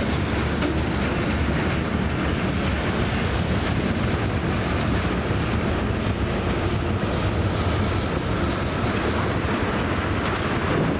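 Norfolk Southern freight train's covered hoppers, gondola and tank cars rolling past, a steady noise of steel wheels running on the rails.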